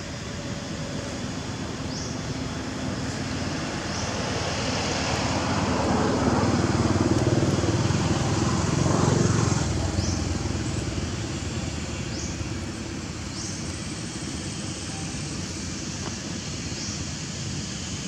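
A motor vehicle passing by: a steady rushing noise that swells to its loudest about halfway through and fades again. Faint short high chirps come now and then.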